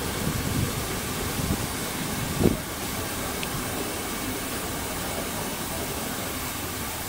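Special train hauled by steam locomotive 44 1486-8 running, heard from a carriage window: a steady rumble of the moving train and rushing air, with a single knock about two and a half seconds in.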